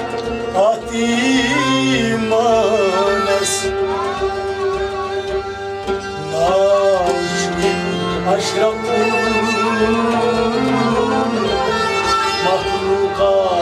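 Instrumental passage of Kashmiri Sufi music: bowed sarangi and harmonium carry a sliding melody over a held drone, with plucked strings and a steady low drum beat.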